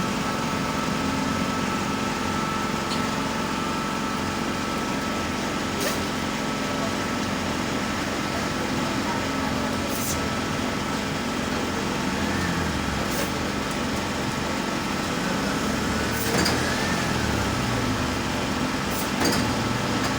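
Hot-air rework blower ("blowing pipe") running steadily, blowing hot air over the charging-port terminals of a phone board to melt the solder. There is a steady hum, with a few faint clicks here and there.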